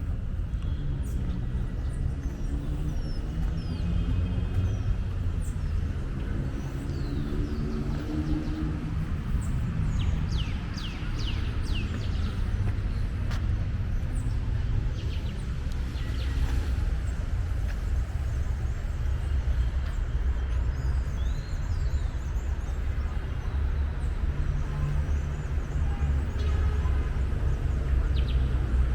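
City park ambience: a steady low rumble of street traffic with birds chirping over it, the chirps busiest about ten to twelve seconds in.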